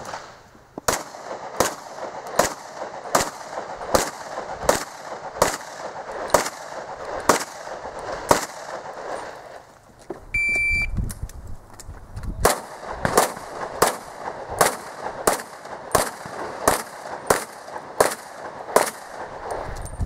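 Two strings of rapid pistol shots, each about a dozen shots at roughly one and a half a second. Between them, about ten seconds in, the range officer's shot timer gives its short high start beep.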